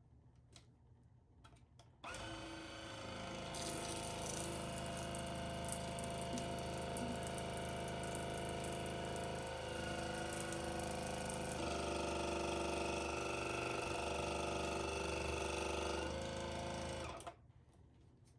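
Water flosser's pump motor running steadily, switching on about two seconds in and stopping a little before the end, its tone shifting a few times along the way.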